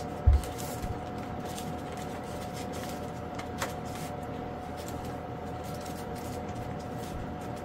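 Steady background hum with a constant tone, under a few faint handling clicks as servo wires are worked through a foam fuselage, and one low bump just after the start.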